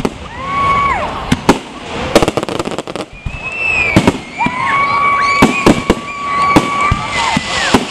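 Aerial fireworks shells bursting in quick succession, a run of sharp bangs and crackling. A long high-pitched whistle-like tone is held over them for about three seconds in the middle.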